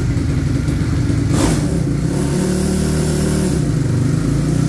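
Race-tuned 70 mm single-cylinder motorcycle engine running loud and revving on a roller dynamometer, its pitch shifting as the throttle is worked. A short sharp blast of noise comes about a second and a half in.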